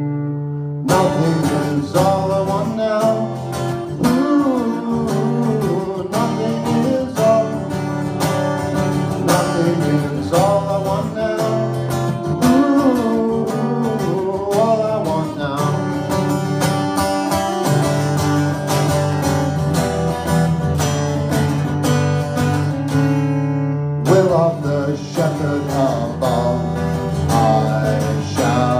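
Acoustic guitar strummed live, with a man singing over it into a microphone. The strumming drops out briefly near the start and again about 24 seconds in.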